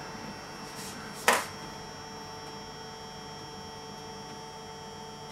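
Rosenstein & Söhne handheld smoking gun's small fan motor running, a steady hum as it pumps wood-chip smoke through its hose into a covered dome. A single sharp click about a second in.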